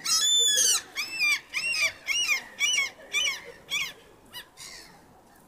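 A gull giving a series of loud yelping calls, about two a second, the first one longest, growing fainter and dying away after about four seconds.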